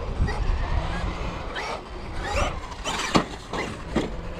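Traxxas XRT RC monster truck's brushless electric motor whining up in short bursts of throttle, followed by two sharp knocks about a second apart near the end.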